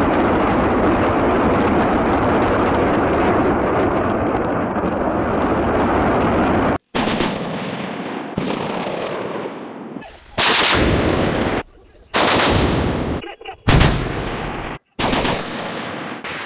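BM-21 Grad multiple rocket launchers firing 122 mm rockets. First comes a continuous ripple of launches for about seven seconds. Then comes a string of separate launch blasts, each starting abruptly and trailing off into a fading rocket roar.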